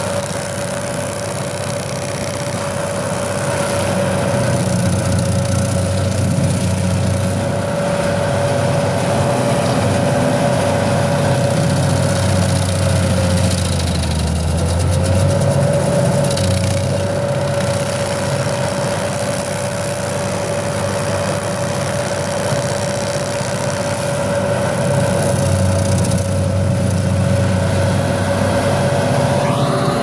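Carlton tracked stump grinder running steadily as its cutter wheel grinds into a tree stump, with a steady high whine that dips briefly about halfway through.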